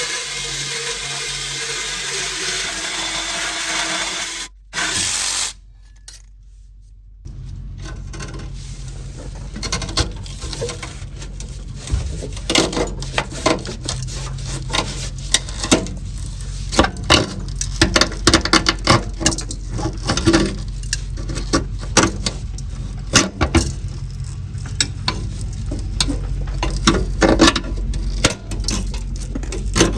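An angle grinder's cutoff wheel cutting through the steel exhaust pipe to remove the muffler, a loud steady hiss that stops about four and a half seconds in. After a few near-quiet seconds another power tool runs with a steady low hum and many sharp, irregular knocks and clicks as the cut goes on.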